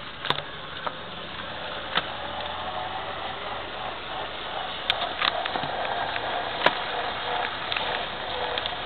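Inside the cabin of a 1998 Mini Cooper with its 1275 cc A-series four-cylinder engine running at low speed, under a steady hiss of tyres on a wet road. Sharp clicks sound now and then, about five times.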